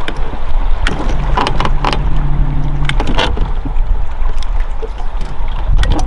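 Wind rumbling on the microphone aboard a small fishing boat, with scattered sharp knocks and taps. A steady low hum runs from about one second in to about three seconds in.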